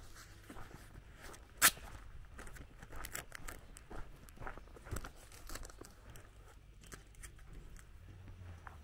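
Footsteps on a gravel lane at walking pace, faint crunches about twice a second, with one sharp click nearly two seconds in that is the loudest sound.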